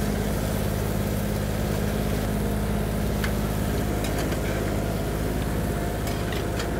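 A steady low mechanical hum runs throughout, and a spatula gives a few faint taps and scrapes against a frying pan as food is folded together in it.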